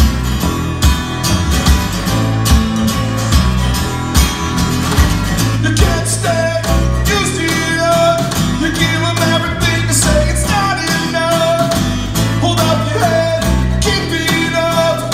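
Live band playing an acoustic-style rock song: strummed acoustic guitars over electric bass and drums keeping a steady beat. A lead voice starts singing about six seconds in.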